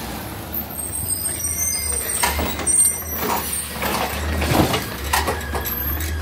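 Automated side-loader garbage truck (Autocar ACX with a Heil Rapid Rail arm) working at the curb: engine running low, an air hiss in the first couple of seconds, then a series of metal clanks from the loading mechanism.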